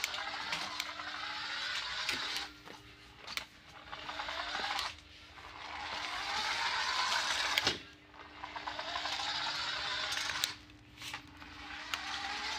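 Toy RC car's small electric drive motor whining in repeated bursts of a second or two, rising in pitch each time the car speeds up, with short pauses between runs and a few sharp clicks.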